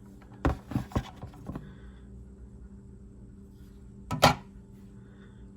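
Several light knocks and clicks in the first second and a half, then one louder, sharp knock about four seconds in: handling of a folding knife and a small scale as the knife is set down to be weighed.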